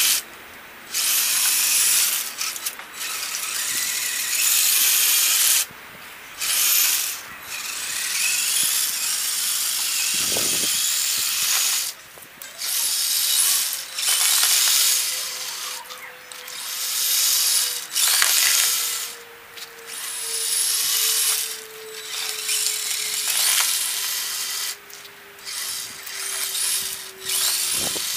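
Radio-controlled truck's small electric motor and gearbox whining in repeated bursts of a second or two, starting and stopping as it is driven in spurts pushing slush with its plow.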